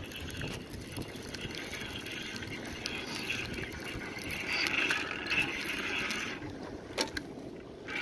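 Sea water washing against the rocks of a breakwater, the hiss swelling a few seconds in and easing again, with a sharp click near the end.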